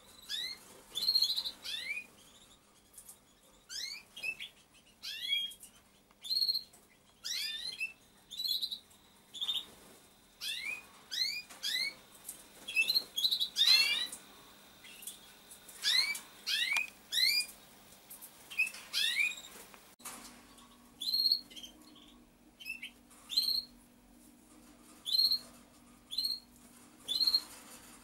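Pigeon squab peeping: a long string of short, high, rising squeaks, one or two a second, the begging calls of a nestling wanting feed. A faint low steady hum joins about two-thirds of the way through.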